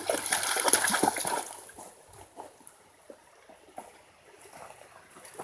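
A dog splashing about in a shallow creek. The splashing is heaviest in the first second and a half, then dies down to scattered small splashes.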